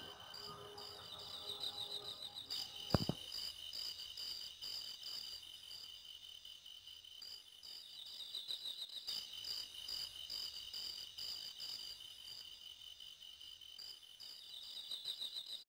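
Faint, steady chorus of crickets chirping in quick, even pulses, with one sharp click about three seconds in.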